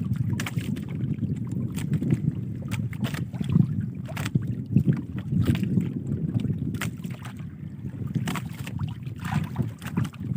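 Steady low rumble of wind buffeting the microphone, with scattered short sharp clicks and knocks over it.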